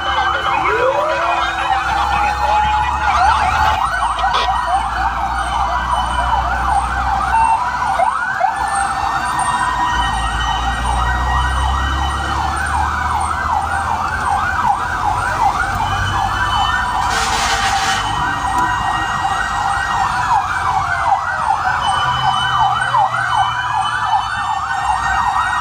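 Several fire truck sirens sounding at once: fast yelping sweeps overlapping with slower rising and falling wails. Heard from inside a fire truck's cab over a low engine rumble, with a brief hiss about two-thirds of the way through.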